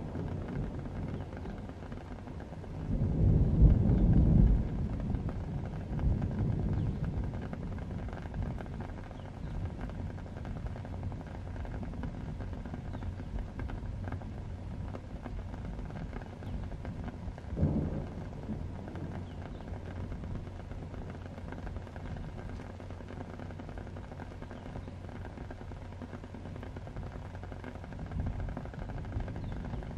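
Thunder rumbling over a steady rain ambience, loudest about three to five seconds in, with a second, shorter rumble a little past the middle.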